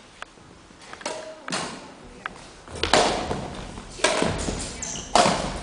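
Badminton rally in a large hall: sharp taps of rackets hitting a shuttlecock, mixed with thuds of players' feet on the floor. The hits are faint at first and grow louder about three seconds in.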